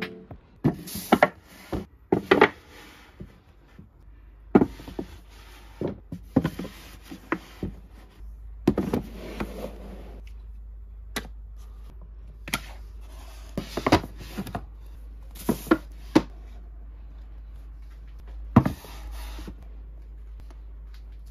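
Paperback manga volumes being slid and knocked into place by hand on an IKEA Billy bookcase shelf: a string of sharp taps and knocks with short scraping slides between them, over a faint low hum.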